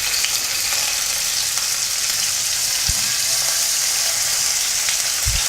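Marinated sardines frying in hot coconut oil in a pan: a steady sizzle, with two soft low thumps about three seconds in and near the end.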